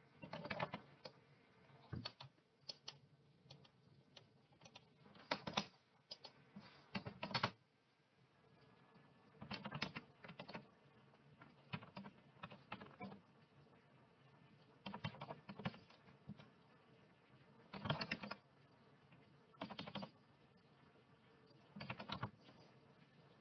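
Typing on a computer keyboard in short bursts of keystrokes, with pauses of a second or two between bursts.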